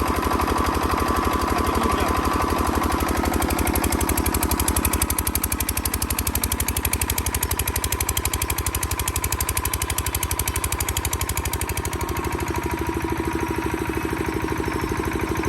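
Bajaj 5 kVA handle-start diesel generator set in a low-noise canopy, running steadily with a fast, even beat.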